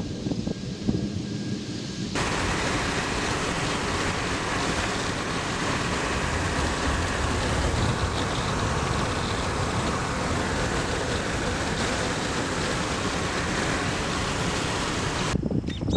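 Gusty wind on the microphone, then about two seconds in an abrupt cut to a steady rushing roar of a moving car's road and wind noise, heard through an open side window; it cuts off abruptly near the end, back to gusty wind.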